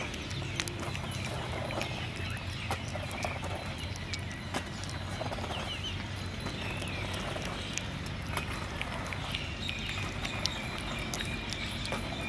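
A puppy eating soft food from a plastic bowl: irregular wet smacking and chewing clicks, a few a second, with the odd knock of its muzzle against the bowl. Faint bird chirps sit in the background.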